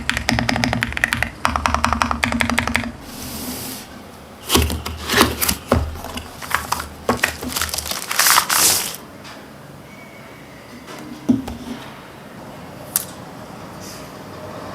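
Fast typing on an Epomaker Shadow-S mechanical keyboard, a rapid run of key clacks for about three seconds. Then scattered, louder clacks and knocks for several seconds, thinning to a few single clicks near the end.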